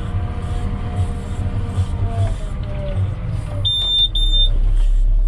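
Volvo wheel loader's diesel engine running, heard from inside the cab. About four seconds in come two short high-pitched electronic beeps, and then the engine grows louder and deeper.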